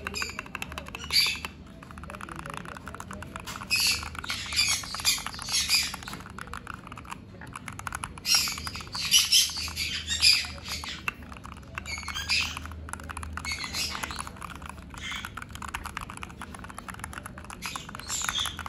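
Typing on a rebuilt Leopold FC660M mechanical keyboard: a steady run of key clicks. Pet parrots squawk over it in repeated loud bursts.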